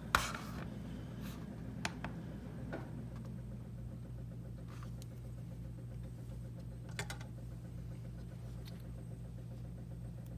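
A digital kitchen scale with a stainless-steel platform set down on a cutting mat with a single knock, followed by a few faint clicks and taps as a small folding knife is laid on the platform, over a steady low hum.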